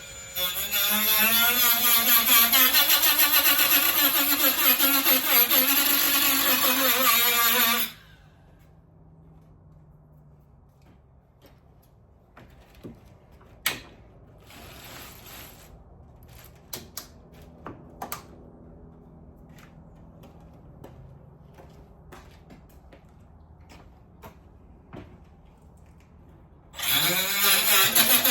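Handheld power cutting tool cutting a body panel along a traced line. The motor runs loud and steady for about eight seconds and then stops abruptly. There is a long stretch of light clicks and knocks, and near the end the tool spins up again.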